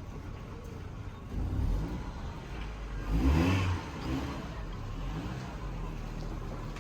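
A motor vehicle's engine running close by, swelling twice in loudness with rising pitch, the second time the loudest, about three seconds in.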